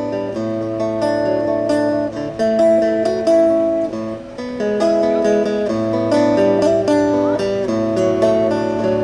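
Guitar strumming chords in an instrumental passage with no singing, the closing bars of a song.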